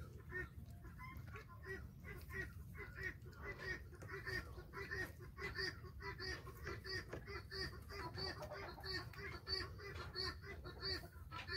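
Farm fowl calling in a rapid run of short repeated notes, about three or four a second.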